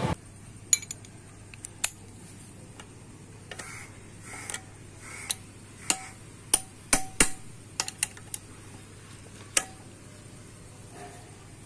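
Metal clinks and taps of a socket and L-shaped box spanner being fitted onto the gear-shifter nuts of a dismantled auto-rickshaw two-stroke engine: a dozen or so sharp clicks at uneven intervals, with a few soft scrapes between them.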